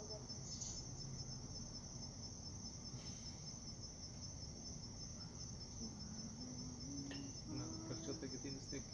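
Crickets chirring steadily: a faint, continuous high-pitched trill.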